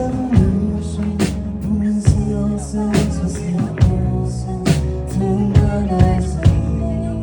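A band playing a dream-pop song: sustained bass and chords under a steady drum beat, with a sharp hit roughly every second.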